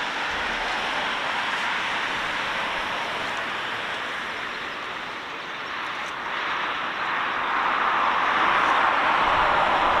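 A Boeing 737-800's twin CFM56-7B turbofan engines at takeoff thrust during the takeoff roll: a steady rushing jet noise that grows louder over the last few seconds as the aircraft comes closer.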